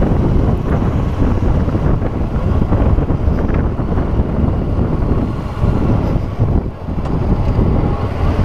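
Wind buffeting the camera microphone over the running parallel-twin engine of a Kawasaki Versys 650 motorcycle riding along a rough dirt road. The sound is a steady, loud rumble that dips briefly about seven seconds in.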